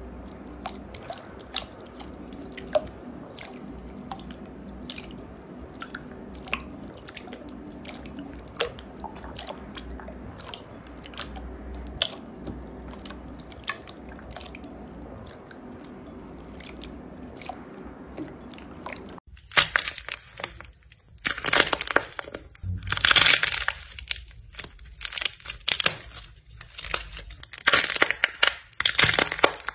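Hands squeezing and folding glossy clear slime, with small sticky pops and clicks. About two-thirds of the way through, this gives way to loud, dense crackling as fingers press and crack a crisp pink shell coating on slime.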